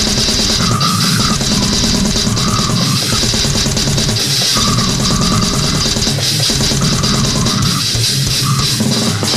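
Heavy metal music with dense, fast drumming and a thick, heavy band sound.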